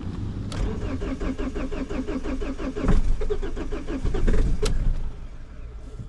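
Ford Focus 1.8 TDCi diesel engine cranking on its starter motor from a hard cold start, with fast, even compression pulses for about four seconds, louder partway through, then the starter cuts out with a click. The engine almost catches but does not start.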